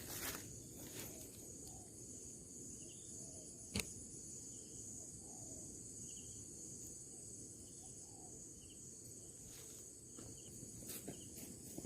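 Steady high-pitched drone of an insect chorus, with faint short chirps now and then and a single sharp click a little under four seconds in.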